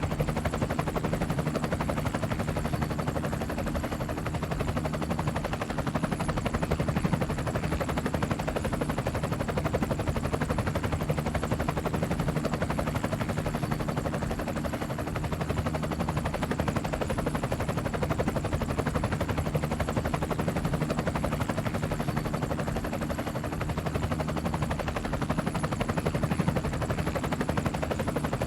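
Helicopter in flight, its rotor blades chopping in a fast, steady beat over a constant engine drone.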